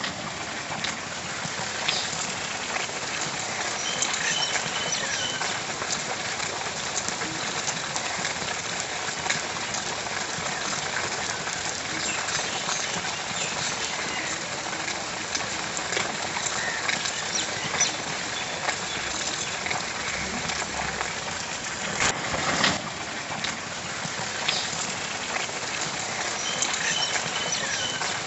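Steady rain falling, a dense even hiss of drops hitting surfaces with many small individual drop ticks. A brief louder burst of noise about three quarters of the way through.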